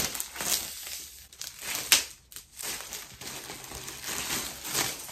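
Clear plastic shrink-wrap being peeled off a laptop box and crumpled in the hand, crinkling, with a sharp snap at the start and another about two seconds in.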